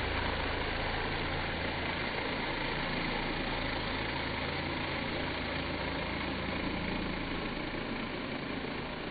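Ryobi 2300 PSI electric pressure washer running, with a steady motor-and-pump hum under the hiss of the turbo nozzle's spray striking vinyl siding. The low hum weakens a little near the end.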